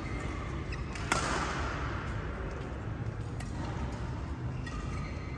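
A badminton racket striking a shuttlecock once, a sharp crack about a second in that rings briefly in the hall, over a steady background hum; a few fainter hits follow.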